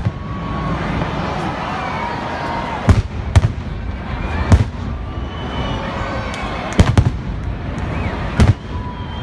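Fireworks display: about six sharp bangs of bursting shells, some in quick pairs about three and seven seconds in, over a steady noisy din from the display.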